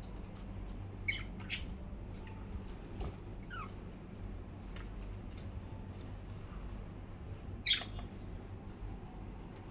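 Pet budgies giving a few short, high chirps, the loudest near the end, among faint clicks, over a low steady hum.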